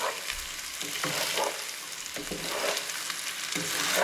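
Spaghetti and diced ham sizzling in butter and oil in a frying pan, tossed and stirred with a wooden spatula in repeated scraping strokes over a steady sizzle.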